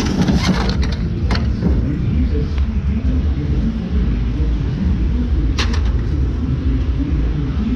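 Steady low vehicle rumble, with a few sharp metallic clanks of aluminum scrap being handled, one near the start and one about two-thirds of the way through.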